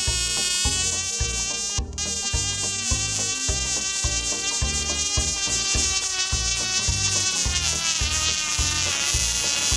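Cox TD .010 two-stroke glow engine running flat out while airborne on a shop rag: a loud, high-pitched buzzing whine that wavers slightly in pitch, over an irregular low rumble.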